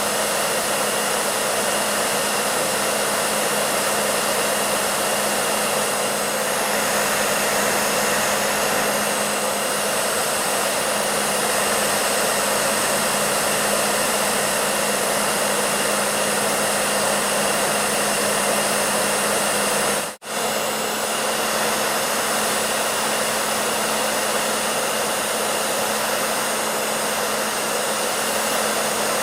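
Hair dryer running steadily: an even rush of blown air over a low motor hum. It cuts out for a split second about twenty seconds in, then carries on unchanged.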